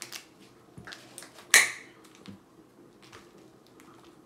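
Knife cutting cooked yams and taro on a china plate: a few light clicks and taps, with one sharp clink of the blade on the plate about one and a half seconds in.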